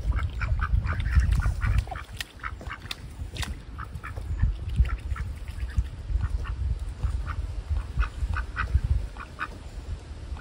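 Domestic ducks giving short, rapid soft quacks, busiest in the first couple of seconds and then scattered. They are dabbling with their bills in mud and shallow water, with small clicks and a low rumble underneath.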